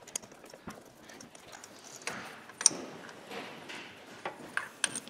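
Irregular clicks and light metallic knocks from a ratchet, socket and extension as a spark plug is unscrewed and pulled out of the engine, with one sharp click about two and a half seconds in.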